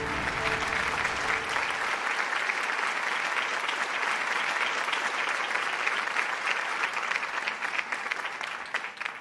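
Audience applauding, a dense patter of clapping. The last held notes of the music die away under it in the first second or two, and the applause fades out near the end.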